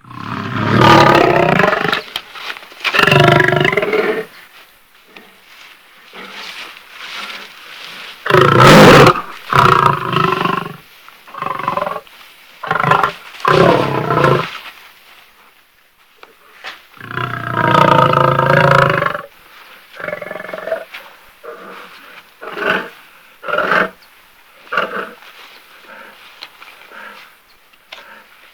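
Beast growls and roars from a sound-effect sequence: separate deep calls of one to two seconds with pauses between. The loudest come about a second in, around eight seconds and around seventeen seconds, and shorter, quieter growls follow in the later part.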